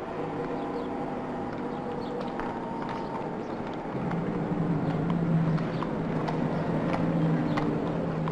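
Horse hooves clip-clopping at a walk. From about four seconds in, a bus engine comes in with a steady low drone as the bus approaches.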